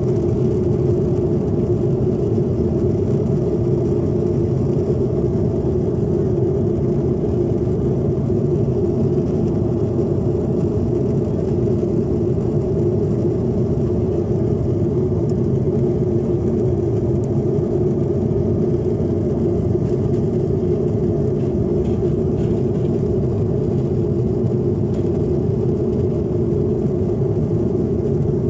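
Steady low drone inside a passenger airliner's cabin: engine and airflow noise, unchanging throughout.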